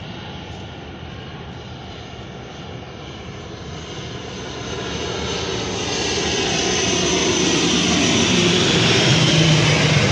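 ATR 42-600 turboprop airliner on landing approach, its twin turboprop engines growing steadily louder as it passes low overhead. The sound is loudest near the end.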